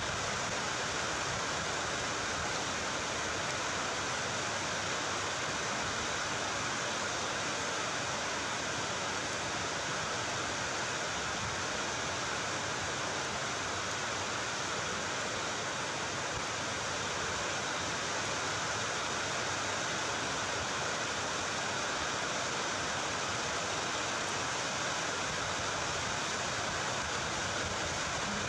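Steady, even hiss that does not change, with no distinct sounds standing out from it.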